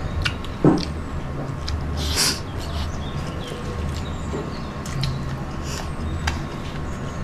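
Eating sounds close to the microphone: chewing and mouth noises with a few short clicks, over a steady low hum.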